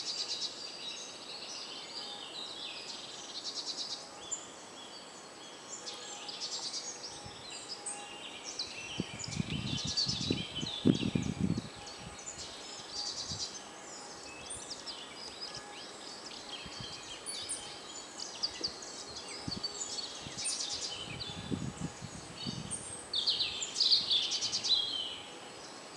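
Several songbirds singing at once, many short overlapping phrases and trills with no pause. Low rustles come twice, about a third of the way in and again near the end.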